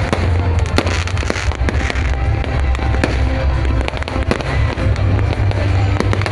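Fireworks going off in quick succession, many sharp bangs and crackles one after another, over loud music and a steady low rumble.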